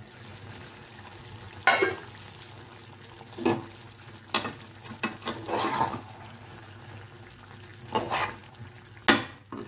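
Chicken and potato curry simmering in a metal pan with a steady low sizzle, while a spatula stirs it, clinking and scraping against the pan about five times.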